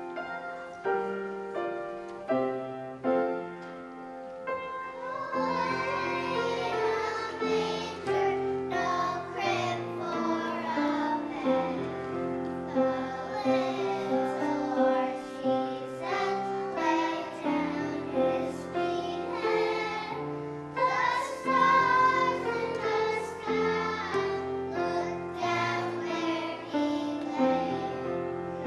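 Young children singing a song together with piano accompaniment. The piano plays alone for about the first five seconds before the children's voices come in.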